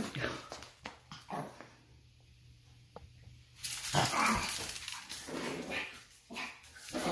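Small dog barking and growling in bursts as it mauls and shakes a stuffed toy, with a lull of about two seconds in the middle.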